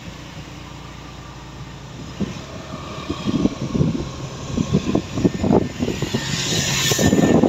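Motorcycle engine running while riding, with wind buffeting the microphone in irregular gusts that grow louder from about two seconds in.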